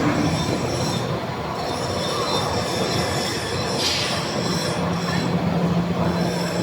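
Heavy steel-fabrication shop noise: a steady machinery din with several high-pitched squealing tones over it, and a low hum that joins about halfway through.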